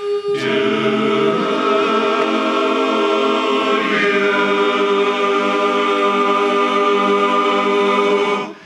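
Barbershop chorus singing a cappella, holding a long final chord that shifts about four seconds in and stops near the end.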